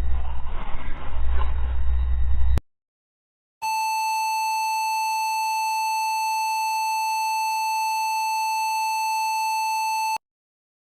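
A noisy stretch with a heavy low rumble cuts off abruptly. After about a second of dead silence, a steady, unwavering electronic tone like a dial tone or beep sounds for about six and a half seconds, then stops abruptly.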